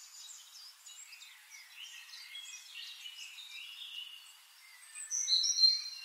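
Small birds chirping and twittering in a busy chorus of short high calls, with a louder, clear, high whistled note from about five seconds in.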